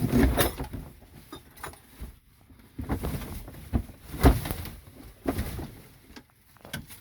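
Irregular knocks and clatters with rustling between them, as junk and clutter are handled and shifted about; the sharpest knock comes about four seconds in.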